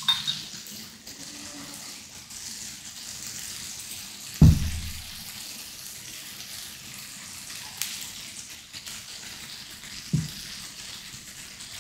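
Chicken sizzling steadily on an electric tabletop grill, with a loud low thump about four and a half seconds in and a lighter one near the end.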